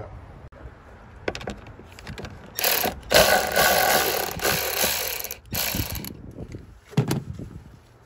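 Ratchet wrench with a socket loosening the negative battery terminal clamp nut, its pawl clicking in a fast run lasting about three seconds, with a few separate clicks before it and a sharp knock near the end.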